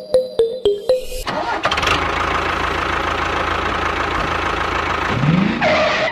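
A short run of quick repeated tones, then an engine starts and runs steadily, with a brief rising whine near the end.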